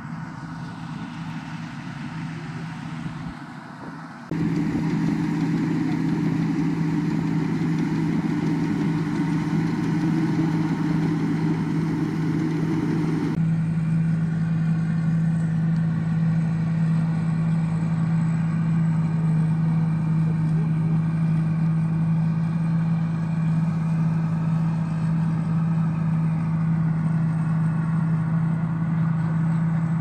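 Rice combine harvester engine running with a steady drone, jumping louder about four seconds in.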